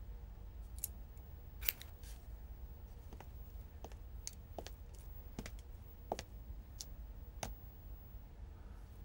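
Small scissors snipping leaves off a potted plant: about ten crisp cuts at irregular intervals, the loudest about two seconds in.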